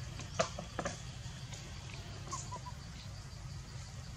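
Outdoor ambience: a steady low rumble, two short sharp clicks within the first second, and a few faint, short chirps about halfway through.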